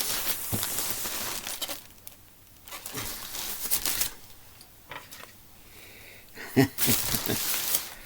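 Rustling, crinkling handling noise in three bursts of a second or so each, with a few soft knocks in between.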